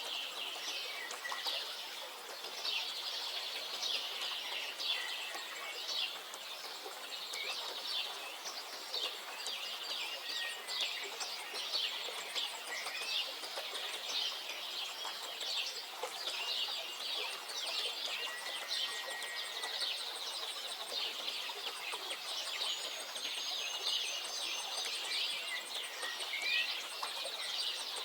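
Small birds singing and chirping, a dense, continuous mix of quick high chirps and trills from several birds at once.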